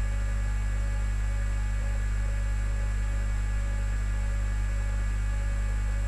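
Steady low electrical hum with fainter higher tones above it.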